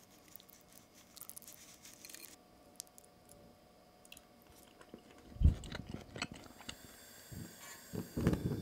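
Faint small clicks and rustles, then a single thump about five and a half seconds in with a few knocks after it. Near the end a lit match is held to the burner of a portable gas stove and the burner catches, starting a steady rush of gas flame.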